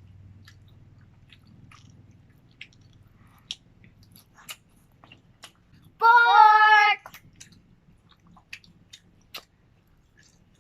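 Close mouth sounds of someone chewing and biting food: scattered short wet clicks and smacks, with a faint low hum under the first few seconds.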